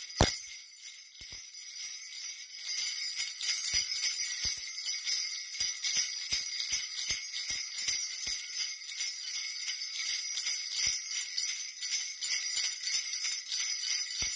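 A strap of small metal jingle bells (sleigh bells) shaken continuously, giving a dense, high-pitched jingling, with a sharper knock just after the start.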